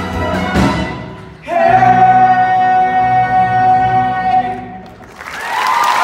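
Cast and orchestral backing track finishing a musical-theatre song: the voices hold one big final note for about three seconds, starting about a second and a half in. Audience applause and cheers swell up near the end.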